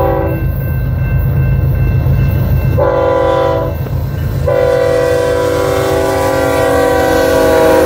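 Air horn of a BNSF freight train's lead diesel locomotive sounding a chord of several notes in three blasts: one ending about half a second in, a short one around three seconds, then a long one from about four and a half seconds on. Under the horn, the steady low rumble of the passing diesel locomotives.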